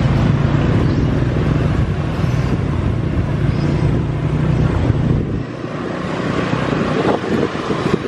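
Street traffic of motor scooters heard from a moving vehicle, with a strong low engine drone that drops away about five seconds in.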